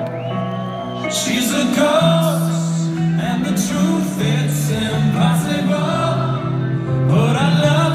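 Live rock band music in an arena: a male lead voice sings over guitar and sustained chords, with a short bright high stroke about once a second.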